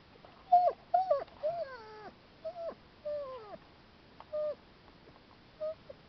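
A dog whining: a string of about eight short whines, several sliding down in pitch, spread over about five seconds.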